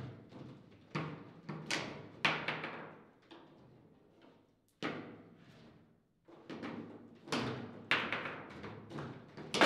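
Foosball in play: the ball struck by the plastic figures on the rods and bouncing off the table walls, a run of sharp knocks a few times a second. There is a short lull about halfway through.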